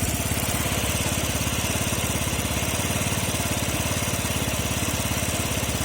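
Yamaha Gear four-stroke scooter engine idling steadily with a fast, even clatter running through it. This is an extraneous noise the owner cannot place: it could be the valves tapping, the timing chain rattling, or a crankshaft bearing.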